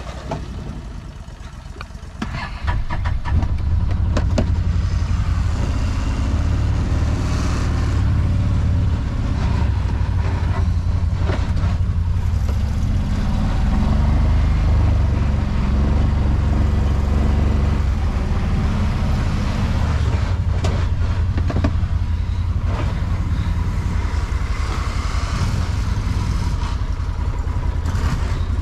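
A motor vehicle's engine running with a heavy, steady low rumble that starts about two and a half seconds in, with scattered knocks and rattles.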